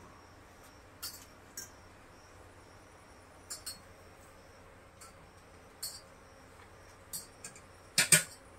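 Scattered light clinks and taps of plates and serving utensils during a meal, about half a dozen, the loudest a quick double clatter near the end. Under them, faint steady chirping of insects.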